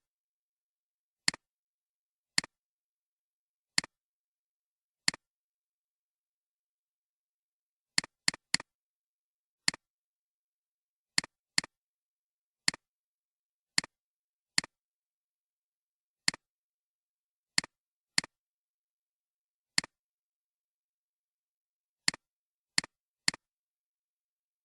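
Sharp single clicks at irregular intervals, about twenty in all, some coming in quick pairs or triples, with dead silence between them.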